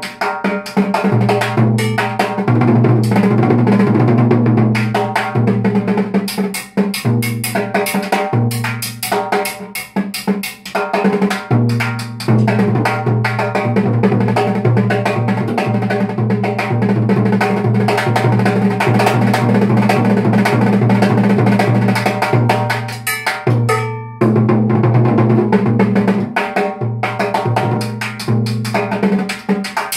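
Steel-shelled timbales played with wooden sticks in a fast, continuous solo: a dense run of sharp, ringing metallic strikes.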